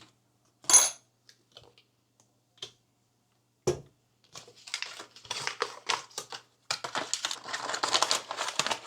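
Packaging being handled while ingredients are prepared: a sharp click, a knock, then about four seconds of continuous crinkling and rustling.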